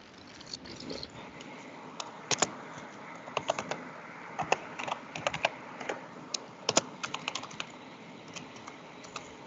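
Typing on a computer keyboard: irregular key clicks in short runs, starting about two seconds in, heard over a video-call link.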